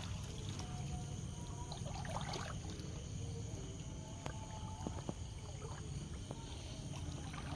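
Steady outdoor night background noise: a low rumble and hiss, with a few faint short tones and light clicks scattered through it.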